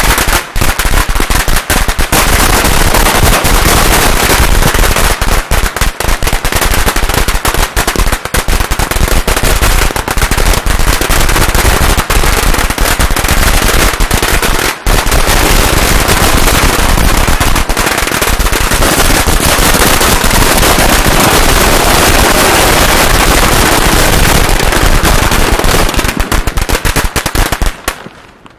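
A 50-metre traca, a long string of firecrackers, going off in a continuous rapid crackle of sharp bangs, then cutting off about half a second before the end.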